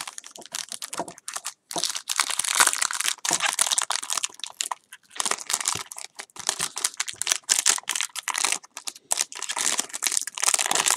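Clear plastic wrapper of a 2015 Topps Strata football card pack crinkling as it is torn open and handled, in several stretches of crackling with short pauses between.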